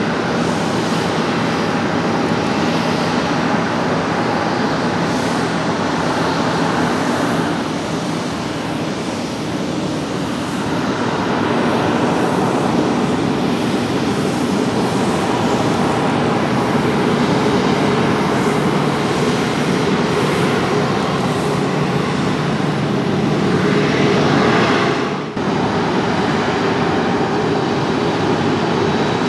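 Boeing 737-400's CFM56 turbofan engines running steadily at taxi power as the airliner rolls past, with a low steady hum under the engine noise. The sound dips sharply for a moment about three-quarters of the way through, then carries on.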